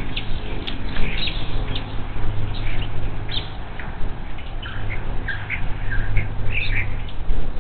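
Birds calling in a string of short, high chirps, thickest in the second half, over a steady low hum.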